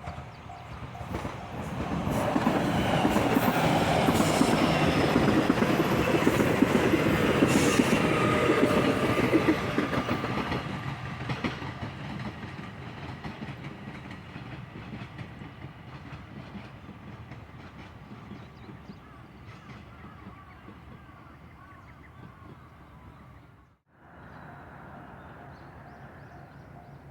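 Train passing over a level crossing, rail clatter loud for several seconds a couple of seconds in, then fading slowly as it moves away. After a brief dropout near the end, the crossing's pulsing warning bell is ringing.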